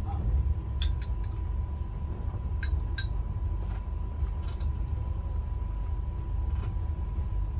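Steady low rumble of a moving passenger train heard inside its air-conditioned coach, with a few light clinks of a spoon against a ceramic soup bowl, a cluster about a second in and two more around three seconds in. A faint steady high tone runs underneath.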